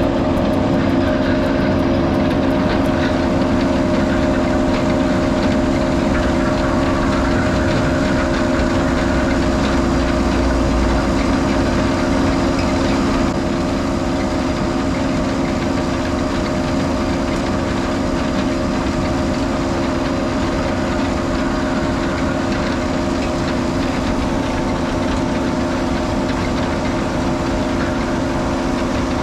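Holmer sugar beet cleaner-loader running steadily as it loads beets into a semi truck: a constant heavy engine drone with a steady hum of machinery, dropping a little in level about 13 seconds in.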